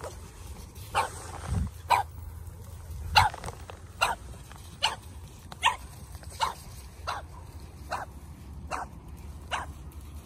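A dog barking repeatedly: about eleven short, sharp barks at a steady pace of a little over one a second.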